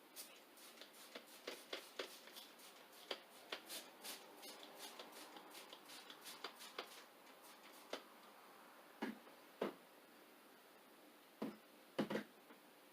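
Handling of a vinyl windshield decal and its backing on wet glass: a run of faint crinkling clicks, then a few louder knocks near the end.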